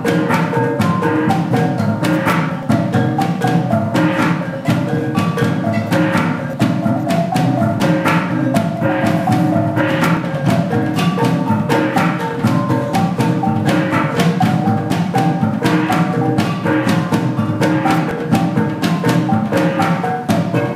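Percussion-led music with pitched mallet-struck notes over a rapid, steady run of wooden clicks and drum strokes.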